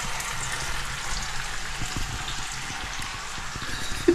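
King bolete mushroom slices frying in a pan: a steady sizzle with fine crackling.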